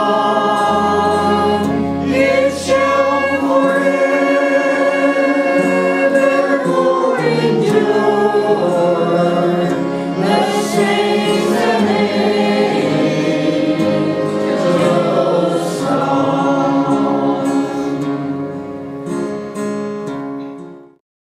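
Small mixed group of men's and women's voices singing a gospel song in harmony, with an acoustic guitar accompanying. The singing fades down over the last few seconds and stops just before the end.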